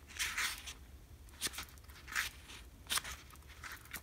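Pages of a small paperback booklet being flipped by hand: about five short papery swishes, roughly one every half second to a second.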